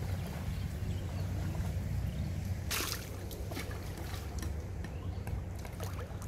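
Metal pot dipped into shallow river water, a splash about three seconds in followed by small trickles and clicks, over a steady low rumble.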